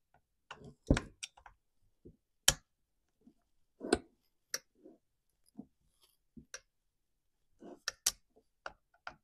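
T27 Torx T-handle driver loosening the ignition coil mounting screws on a Stihl MS250 chainsaw: irregular sharp clicks and light knocks of the tool on the screws and the saw's metal.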